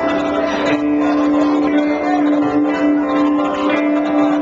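Live rock band playing loud on two electric guitars and a drum kit, with one guitar note held long and steady over the other instruments.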